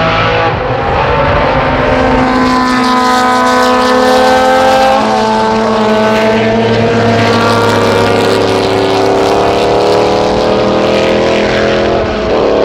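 Engines of 1960s–70s endurance racing sports cars at high revs passing on a circuit. The engine note climbs at first, then falls slowly as the car draws away, and another car's engine takes over near the end.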